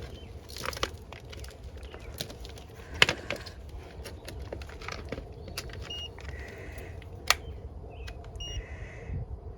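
Tools and metal parts being handled while an air conditioner is checked: scattered clicks, knocks and light metallic clinks, the sharpest about three seconds in and again about seven seconds in, over a steady low rumble, with a few faint short high beeps.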